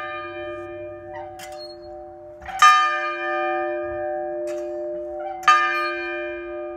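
A large church bell in an outdoor stand is rung by hand: it is still ringing from a stroke just before, then is struck twice more about three seconds apart, each stroke ringing on over the last, with fainter knocks between strokes. The bell is tolled three times to open a worship service, in honour of the Trinity.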